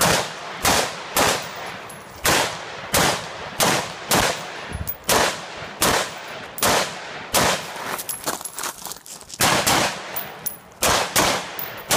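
AR-15-style semi-automatic carbine firing a string of single shots, about two a second, each with a short echo off the berms. About eight seconds in the firing pauses for roughly a second and a half, then resumes for a final several shots.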